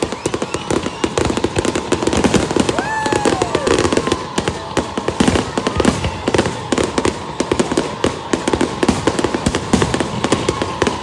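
Aerial fireworks going off in a rapid, continuous barrage of overlapping bangs and crackling.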